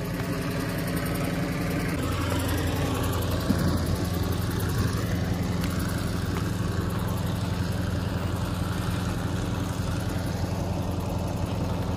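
An engine idling steadily: an even low hum.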